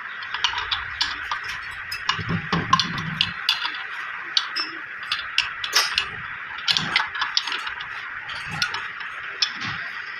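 Irregular light clicks and clinks of tools and metal parts being handled, over a steady hiss, with a few duller knocks.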